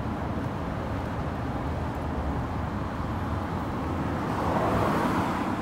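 Road traffic noise by a street with a steady low rumble, swelling about four and a half seconds in as a vehicle passes.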